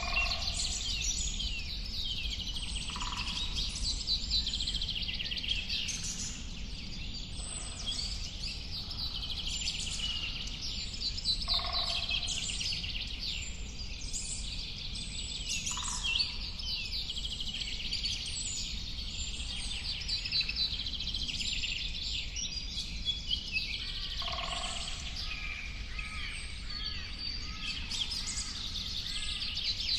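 A dense chorus of many birds singing and chirping at once, with overlapping high trills and a shorter, lower call every few seconds, over a steady low rumble.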